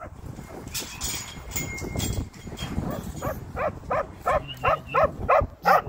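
Working kelpie barking at sheep: a steady run of short barks, about three a second, starting about three seconds in. Before that, shuffling and a few knocks.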